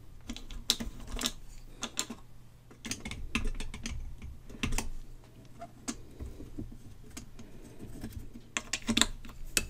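Irregular small clicks and taps of a screwdriver and fingers working on a phonograph's wiring and switch terminals on a metal mechanism plate, with a few louder clicks near the end.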